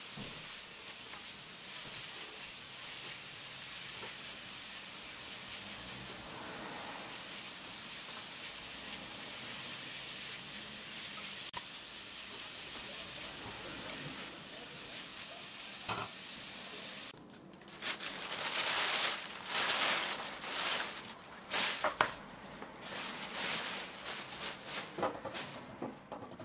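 Sliced leeks sizzling in oil in a frying pan while a spatula stirs them, a steady hiss. About seventeen seconds in the sizzling stops abruptly and gives way to a run of louder, irregular noisy sounds.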